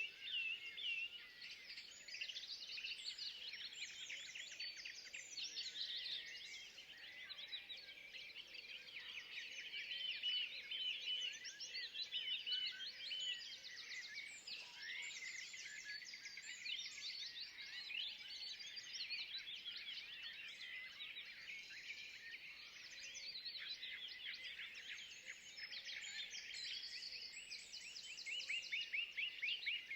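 Dense chorus of many songbirds chirping and trilling at once, overlapping calls that never stop and swell in and out.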